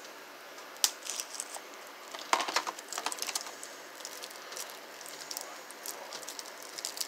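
A plastic DVD case in its shrink wrap being handled: a sharp click about a second in, then a burst of plastic crinkles and clicks a little after two seconds, and scattered small clicks after that.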